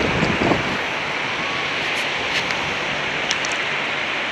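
Steady rush of sea surf with wind buffeting the microphone, and a few faint ticks.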